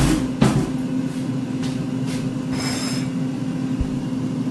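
Air fryer running with a steady low hum. Two sharp knocks come in the first half second, and a brief rattle comes about two and a half seconds in.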